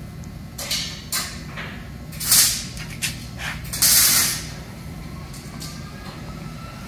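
Plastic air hose being handled and fitted onto pneumatic fittings: several short rustling, hiss-like noises, the loudest about two and four seconds in, over a steady low hum.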